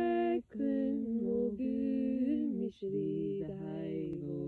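Unaccompanied singing: a voice holds slow notes that step up and down between phrases, with short breaks about half a second in and near the middle.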